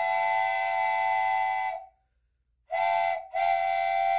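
Steam locomotive chime whistle sounding a steady chord in three blasts: a long blast of nearly two seconds, a pause, then a short blast followed by another long one.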